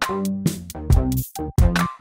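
Background electronic music with a steady drum-machine beat.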